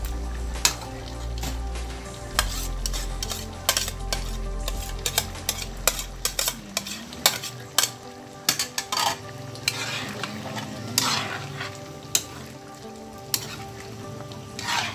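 Spatula scraping and clacking against a metal wok as chicken stew is stirred, over the sizzle and bubbling of the simmering sauce. A low hum underneath stops about halfway through.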